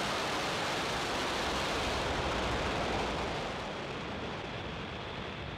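Falcon 9 first stage's nine Merlin 1D engines at full thrust just after liftoff: a steady rushing rumble that grows duller and a little quieter from about three seconds in as the rocket climbs away.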